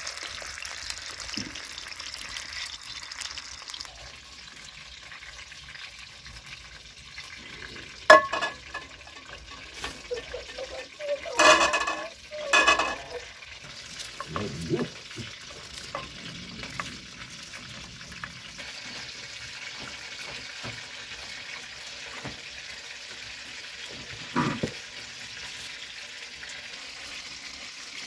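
Chicken pieces frying in oil in a pot over a wood fire, a steady sizzling hiss. A few louder knocks and clatters break in around the middle, with one more knock near the end.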